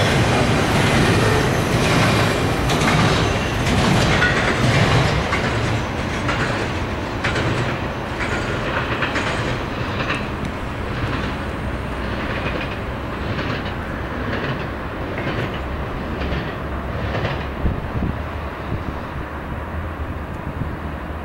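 Norfolk Southern double-stack intermodal train rolling past, its freight-car wheels clicking over the rail joints with a low rumble underneath. The clicking grows fainter over the second half as the train pulls away.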